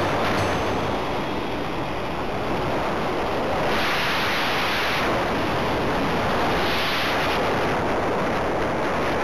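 Wind rushing over the microphone of a camera mounted on a radio-controlled model aircraft in flight: a steady, unpitched rush that grows stronger twice for about a second, around the middle.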